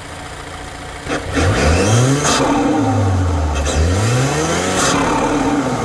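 The 2021 Mazda 3 Turbo's turbocharged 2.5-litre four-cylinder, heard at the open cone filter of its Corksport short ram intake. It idles, then is revved twice, the pitch rising and falling each time, with short bursts of hissing intake noise around each rev.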